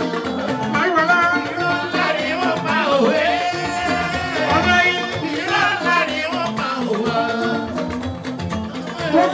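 Live fuji music: a male lead singer sings into a microphone over a band with electric guitars and percussion.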